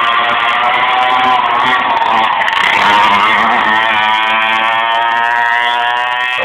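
Sidecar motorcycle engine running under load, its pitch wavering and loudest about three seconds in, then climbing steadily as it accelerates near the end.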